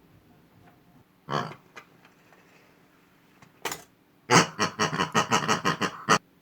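Pig oinks: a single short oink about a second in, another a little after three and a half seconds, then a rapid string of oinks lasting about two seconds near the end.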